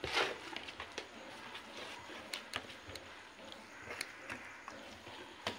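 Hands working a wet masala paste on a large aluminium plate: soft squelching with scattered small clicks and taps.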